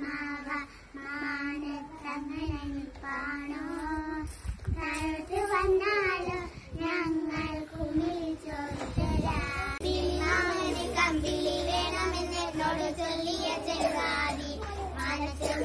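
Small group of young girls singing a song together with no instruments heard. About ten seconds in, a second group takes over, with a low steady hum under their voices.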